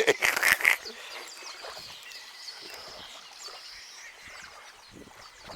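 Wild birds chirping, with short high calls scattered throughout, after a brief burst of voices at the very start.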